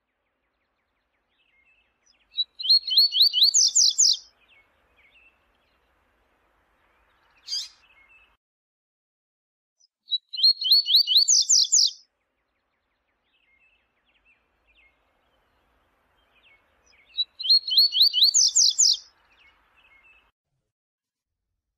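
Double-collared seedeater (coleiro) singing its 'viu-tiu' song: three phrases about seven seconds apart, each a fast run of high, rising notes lasting about two seconds, with a single short note between the first two.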